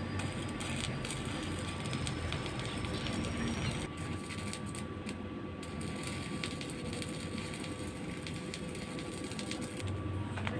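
Electric arc welding: the steady crackle and sizzle of the welding arc, with a faint steady whine underneath.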